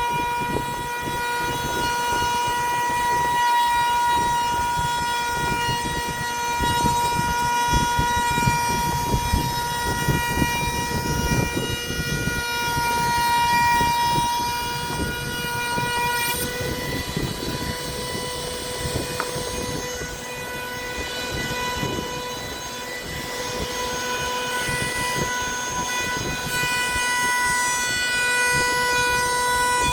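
Electric woodworking power tool running steadily with a high, even whine, over rough, uneven cutting noise. There is a short click about 16 seconds in.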